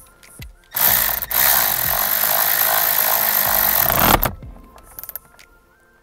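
Cordless power tool with a socket extension running in one long burst of about three and a half seconds, with a brief break just after it starts. It is driving the bolt at the center of the steering wheel hub to fasten the new wheel.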